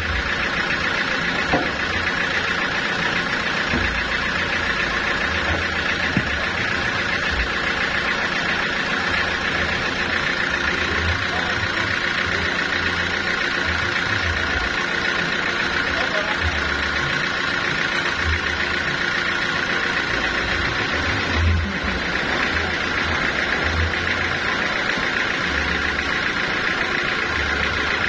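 Band sawmill running steadily without cutting, its motor and free-running blade making an even drone, with irregular low thumps underneath.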